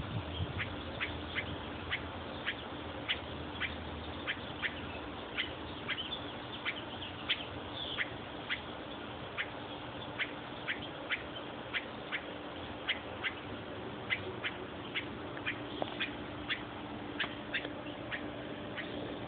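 A bird squawking over and over from the bushes, short sharp calls repeated every half second or so, with a steady low hum underneath.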